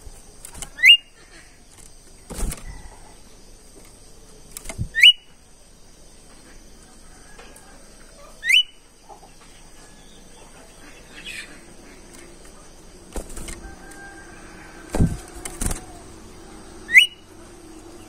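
Small caged songbird, the 'bimoli' of Indonesian bird keepers, giving four sharp, quickly rising whistled notes several seconds apart. Between the notes come short thumps and wing flutters as the bird hops about its cage.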